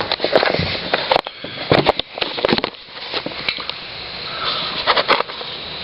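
A person sniffing a few times, with scattered clicks and knocks of parts being handled.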